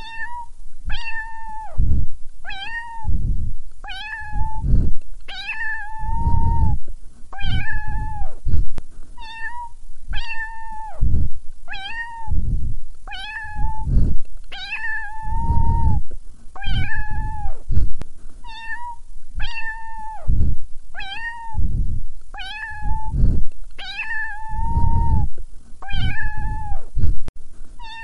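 A cat meowing over and over at a steady pace, about once a second. Each meow is held at an even pitch and then falls off at the end. Low thuds or rumbles come between the meows.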